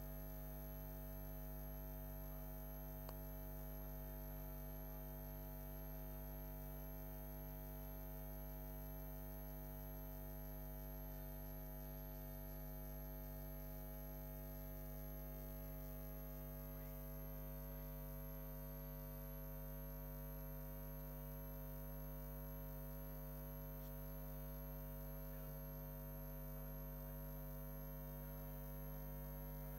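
Steady electrical mains hum made of several constant tones, with a high steady whine above them; there is no programme sound.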